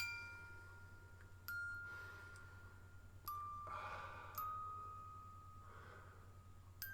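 Soft bell-like chime notes: four single notes at different pitches, struck one to two seconds apart, each ringing out and fading.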